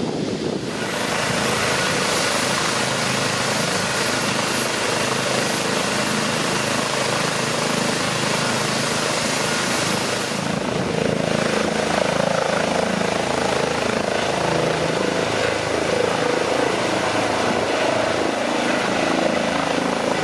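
Airbus EC135 medical helicopter running with its rotor turning, a steady loud turbine and rotor noise that grows fuller about halfway through as it lifts off.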